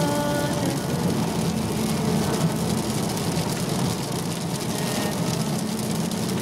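Road noise inside a moving car at night: a steady hiss of tyres and wind over a low engine hum.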